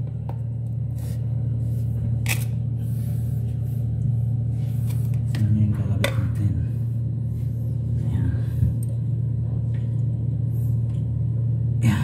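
A steady low hum throughout, with a few sharp clicks and taps of handling scattered through it, the last as a hand grips the plastic nut under the toilet tank.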